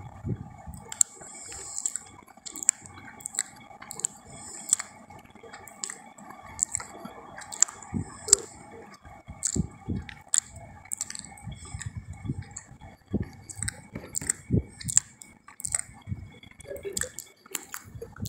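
Wet chewing and lip-smacking of someone eating, with irregular sharp clicks and squishes several times a second. A faint steady hum runs underneath.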